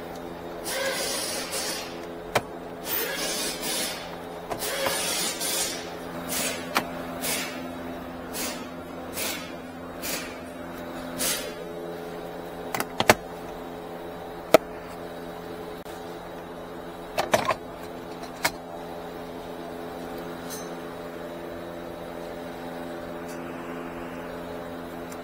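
Plastic dashboard trim on a 2017 Nissan Rogue being pried loose by hand: scraping and rubbing for the first few seconds, then a handful of sharp clicks as the retaining clips pop, most of them near the middle. A steady low hum runs underneath.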